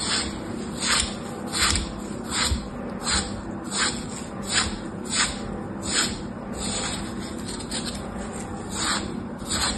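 Crisp crunches of a box-cutter blade cutting through a dry, crumbly green block scored into small cubes, about one every three-quarters of a second, with a short pause about two-thirds of the way through.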